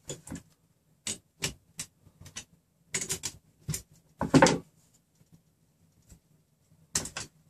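Handling noise of a RepRap Prusa Mendel frame being adjusted: a wrench, nuts and threaded steel rods clicking and knocking. There are about a dozen short clicks spread out with pauses between them, and a longer, louder clatter about four and a half seconds in.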